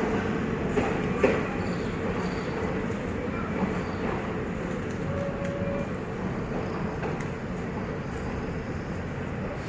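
Departing train running on the rails, a steady rumble that slowly fades, with a short knock about a second in.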